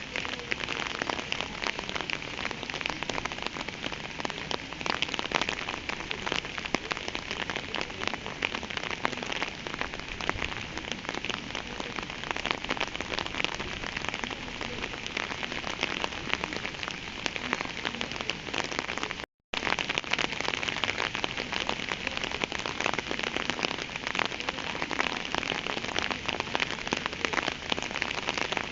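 Steady rain falling, a dense hiss of many small drop hits. It cuts out to silence for a split second about two-thirds of the way through.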